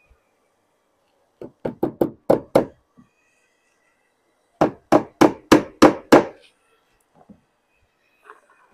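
Claw hammer driving nails through a lead cheek panel into a dormer's timber framing: two runs of about six quick strikes, a couple of seconds apart.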